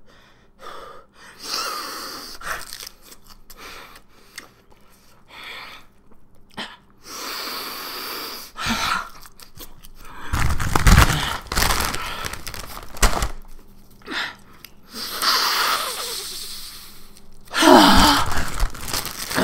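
A man gasping and breathing out hard in a series of separate bursts between mouthfuls, with chewing. The loudest gasp comes near the end.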